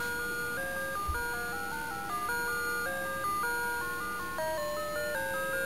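A baby toy's electronic tune: a simple beeping melody of pure tones in two or three voices, stepping from note to note, starting abruptly.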